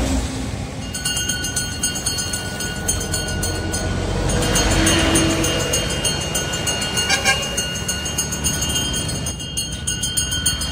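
Roadside traffic running steadily, with a vehicle passing about four to five seconds in. Steady high-pitched tones with a quick, even pulse sound over it.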